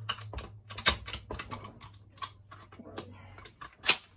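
Metal parts of a Yugo SKS M59/66 rifle's action clicking and clacking as it is reassembled by hand: an irregular run of small clicks, with one sharp snap near the end.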